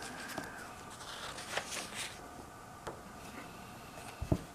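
Paper pages of a bound notebook rustling and being turned, with faint scrapes and small ticks, then two soft thumps near the end.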